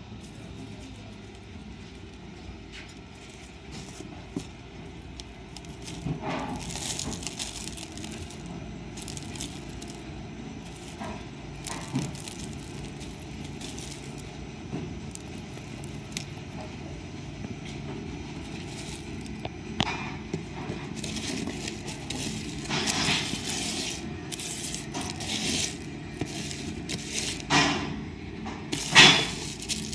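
Dry soybean chaff, pod pieces and broken seed, scraping and crackling against a plastic tray in irregular bursts, over a low steady hum. The loudest scrape comes near the end.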